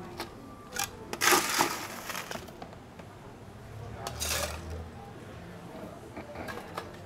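Ice cubes clattering into a stainless steel cocktail shaker tin in two rattling pours, with a few sharp clinks of ice against metal and glass.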